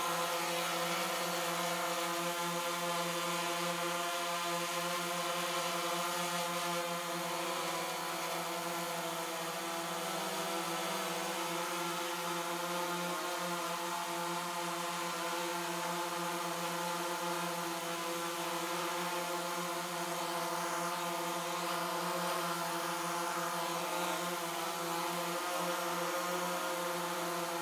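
DJI Phantom 3 Advanced quadcopter hovering, its propellers and motors giving a steady, even multi-tone buzz that hardly changes in pitch.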